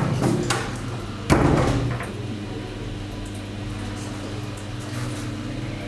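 Door handle and latch clicking, then the door shutting with a thud about a second in, followed by a low steady hum.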